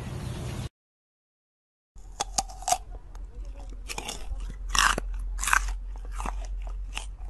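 Sika deer chewing: a run of irregular crunches and clicks that starts about two seconds in, after a short silence, and is loudest around five seconds in.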